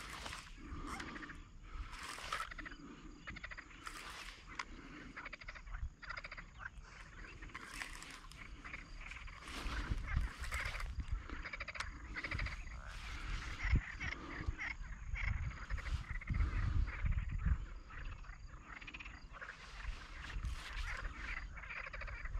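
A chorus of frogs croaking steadily, with a low rumble rising and falling from about halfway through.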